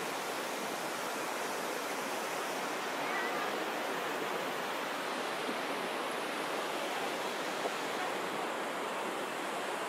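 A flash-flooded river rushing past in a steady, unbroken roar of muddy water.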